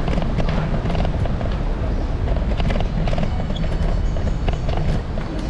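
Street ambience in a busy alley: a steady low rumble with scattered light clicks and taps.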